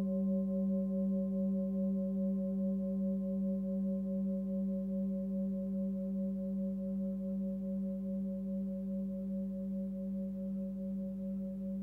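A forged Sun Moon singing bowl, 19.8 cm and tuned to about 193 Hz (G), rings on its own and slowly fades. Its deep hum lies under several higher overtones, one of them pulsing in a quick even wobble.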